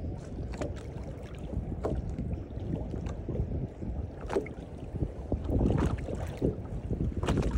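Wind buffeting the microphone over choppy sea, with irregular splashes of water slapping against the boat's hull.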